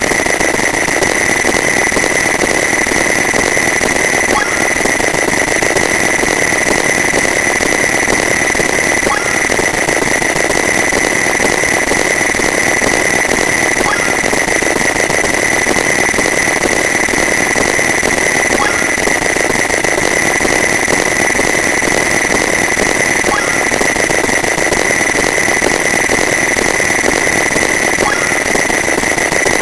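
A dense, unbroken wall of many alarm sounds stacked on top of each other, merging into one steady blaring wash with a shrill tone running through it. It starts abruptly and holds at the same level throughout.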